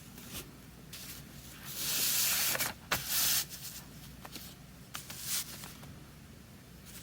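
Chinese calligraphy brush rubbing across paper in several scratchy strokes of different lengths, the longest about a second long, with a sharp tick between the two loudest strokes.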